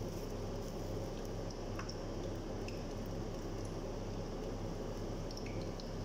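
Dough balls for luqaimat frying in hot oil in a pan: a steady sizzle with scattered small pops and crackles, over a steady low hum.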